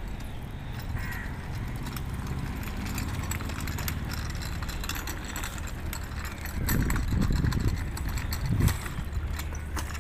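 Child's bicycle with training wheels rolling over paving tiles, rattling over the joints in a run of irregular clicks and knocks. A few louder low bumps come past the middle.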